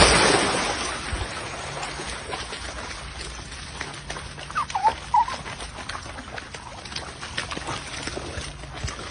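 A dog splashing and sloshing in a muddy stream of running water, loudest at the very start and then settling into steady running and splashing water. Two brief high whines come near the middle.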